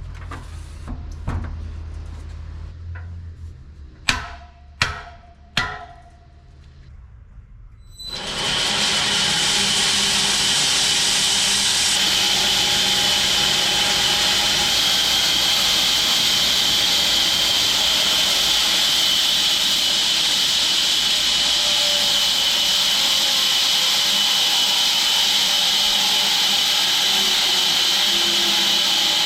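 Three sharp metal clanks about four to six seconds in, then from about eight seconds a home-built 6 ft wide bandsaw mill cutting through a log with a loud, steady, high hiss.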